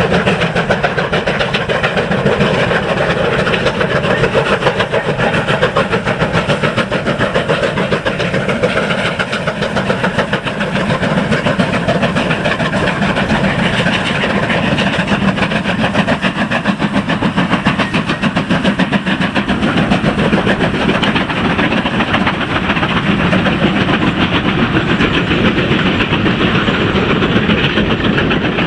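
USATC S160 2-8-0 steam locomotives working hard in multiple, their exhausts giving a rapid, overlapping chuff. Near the end the coaches roll past behind them.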